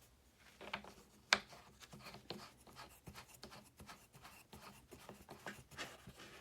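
Plastic tube parts of a no-tools furniture stand being handled and screwed together by hand: irregular small clicks and rubbing scrapes, with one sharper click about a second in.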